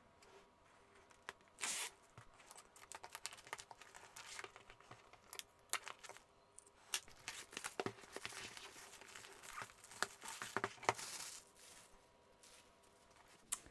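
Clear plastic shrink-wrap being torn and peeled off a long cardboard kit box, crinkling and crackling in irregular bursts, with louder rips about two seconds in and again near the end.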